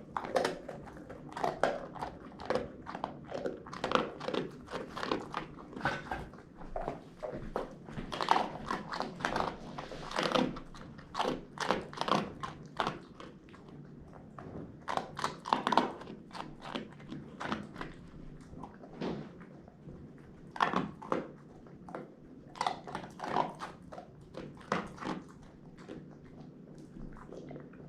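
A dog biting and chewing on a crunchy donut, making an irregular run of loud crunches and clicks that briefly thins out about two-thirds of the way through.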